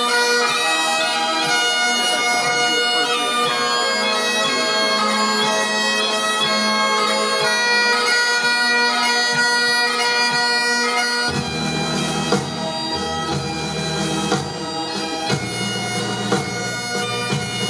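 Bagpipes playing a tune over their steady drones. About eleven seconds in, a deeper bass part joins.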